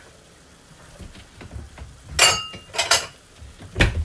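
Kitchenware clinking and knocking: three sharp strikes, about two seconds in, again shortly after, and near the end. The first rings briefly with a clear tone.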